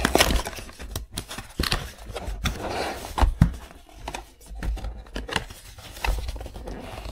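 A cardboard box being opened by hand: irregular clicks, knocks, scrapes and rustles of the packaging, with a stretch of rustling about three seconds in.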